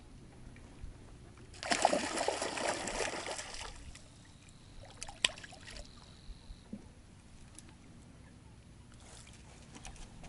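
Water splashing and sloshing for about two seconds, starting about two seconds in, followed by a few sharp clicks, the loudest about five seconds in.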